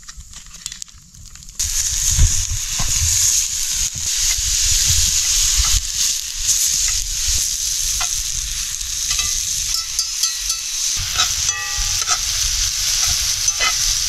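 Ground beef dropped into a hot oiled cast-iron skillet over a campfire, starting a loud, steady sizzle about a second and a half in. A spoon scrapes and stirs the meat in the pan as it browns.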